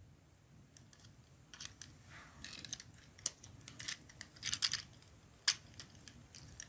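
Hard plastic parts of a Transformers action figure clicking and scraping as they are handled and pressed into place: faint at first, then scattered small clicks, with a sharp click about five and a half seconds in.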